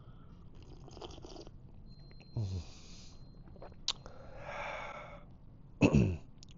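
A man sipping coffee: a breathy slurp and exhale, with two short falling-pitch contented sighs, the second and loudest near the end.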